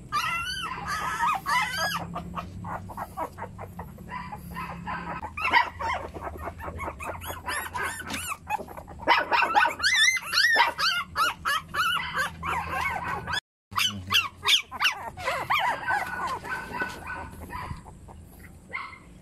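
Newborn puppies crying: many short, high-pitched wavering squeals one after another, with a brief break about two-thirds through, tailing off near the end.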